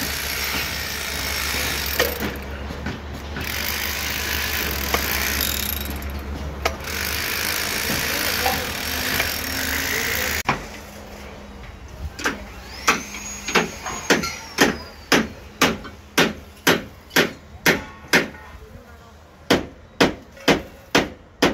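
A handheld angle grinder runs with a steady harsh grinding noise as steel form-tie rods sticking out of a concrete wall are cut off. About ten seconds in this gives way to sharp metallic hammer blows on steel formwork, about two a second, with a short pause near the end.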